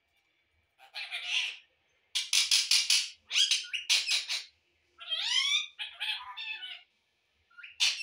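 Rose-ringed parakeet calling in a string of loud bursts, some rapid pulsed squawks and some gliding, pitched notes.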